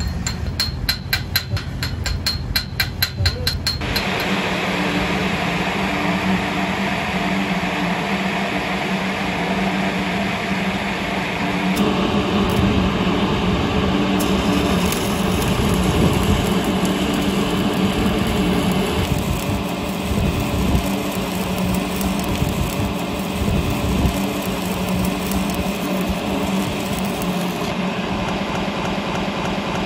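Rapid tapping of a chipping hammer on a steel pipe weld for about the first four seconds, then a stick-welding arc sizzling steadily with a low hum as a root pass is run around the pipe.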